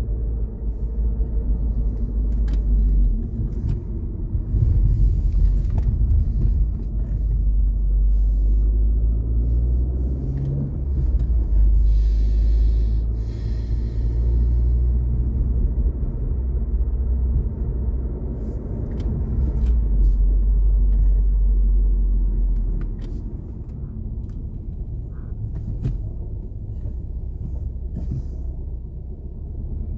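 Car driving on a city road, heard from inside the cabin: a steady low rumble of engine and tyre noise, easing off a little over the last several seconds.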